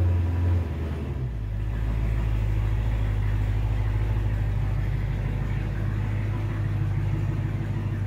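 Chrysler 300 SRT8's 6.4-litre 392 Hemi V8 idling low and steady as the car creeps out in reverse, its note shifting slightly about a second in.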